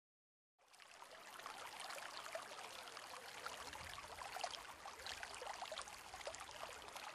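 Faint, steady water sound, a hiss full of tiny droplet-like ticks, fading in about half a second in.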